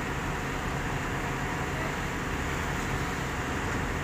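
Heavy diesel engine of the paver-loading rig running steadily.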